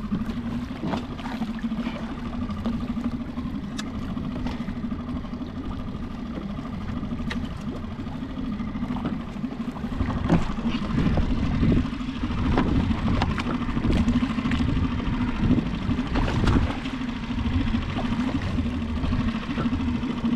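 Small Mercury outboard motor running at a steady low hum on the kayak. Irregular knocks and rustles sit over it, getting louder from about halfway through.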